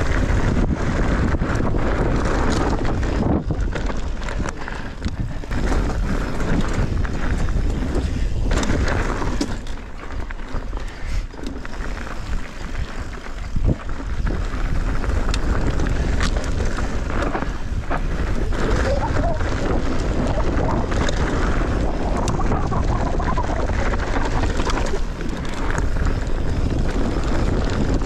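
Wind rushing over the microphone of a camera carried on a mountain bike ride, with knocks and rattles from the bike over rough ground. The wind noise eases for a few seconds about ten seconds in, then picks up again.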